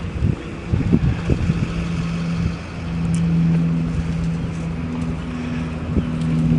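A motor vehicle engine running steadily as a low, even hum, with a few low thumps in the first second and a half.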